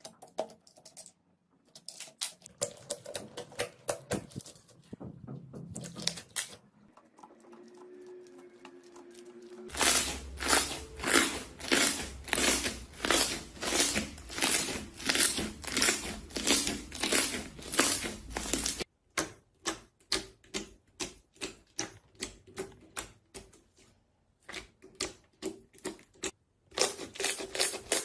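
Slime being pressed and squeezed by hand, making crackly, clicking pops in several short clips. The loudest stretch, from about ten to nineteen seconds in, is an even rhythm of about two presses a second.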